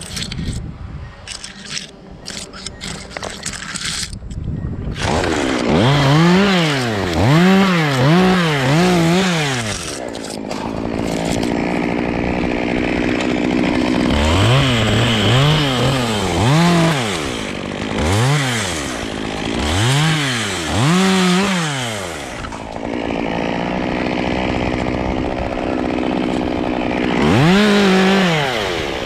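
Chainsaw engine revving up and down in quick repeated surges, about one a second, with steadier running between runs. It comes in after a few seconds of scattered clicks.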